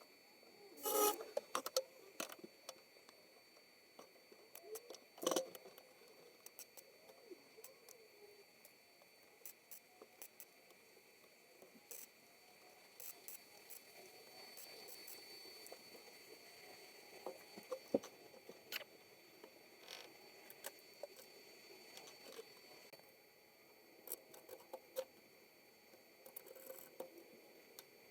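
Faint scattered taps, clicks and light scrapes of hand work, with two louder knocks, one about a second in and one about five seconds in, over a faint steady hiss.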